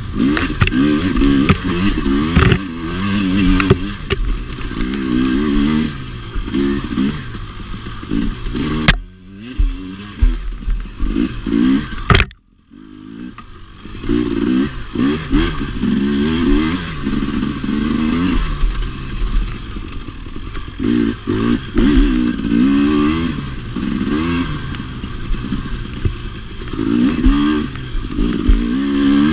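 KTM 250 XC-W two-stroke dirt bike engine, revving up and down over and over while being ridden off-road. The sound falls away twice around the middle before the engine picks up again.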